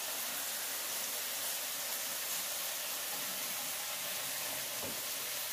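Steady sizzling hiss of a hot ghee-and-butter tadka with chillies, cumin and ginger, poured from a small pan over spinach and maash daal.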